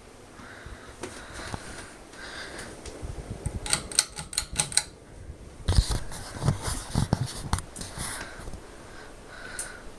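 42-inch Harbor Breeze Calera ceiling fan running, with a run of rapid clicking and knocking from about three seconds in until about eight seconds, broken by a short pause halfway through.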